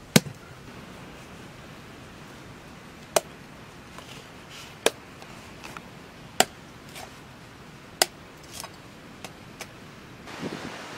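A knife chopping into a pumpkin's rind: five sharp chops about a second and a half apart, with lighter knocks between them as the pumpkin is split and cut into pieces.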